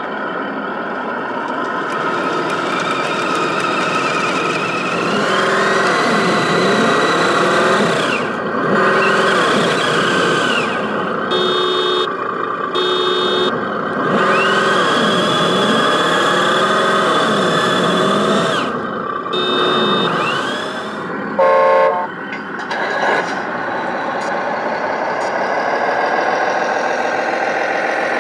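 Simulated diesel truck engine from an RC semi truck's sound module, revving up and down in long sweeps under load. Short repeated electronic beeps and a short loud horn blast cut in, and a steadier idling engine sound follows near the end.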